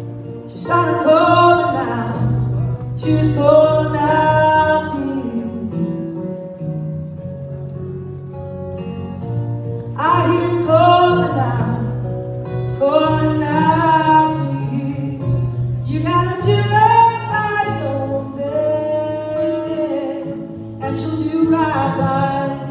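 Live song: a woman sings in phrases over acoustic guitar accompaniment. The guitar carries on alone in the gaps between her lines, the longest gap coming from about five to ten seconds in.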